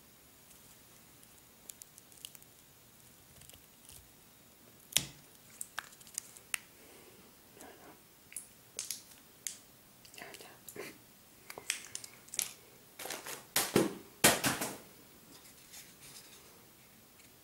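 Plastic wrapping and paper crinkling and rustling as items are handled, with scattered sharp clicks. The rustling starts after a sharp click about five seconds in and is loudest near the end.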